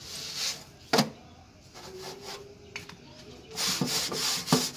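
A cloth rubbing over a flour-dusted metal baking plate, wiping it clean: rough scraping strokes from about three and a half seconds in. Earlier there is a single sharp knock about a second in, the loudest sound, as the bread comes off the plate.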